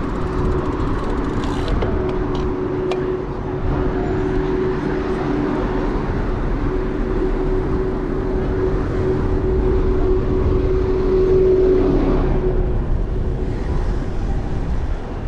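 Wind rumbling on an action camera's microphone while cycling, with a steady engine-like drone of road traffic running alongside. The drone gets a little louder, then stops about twelve seconds in.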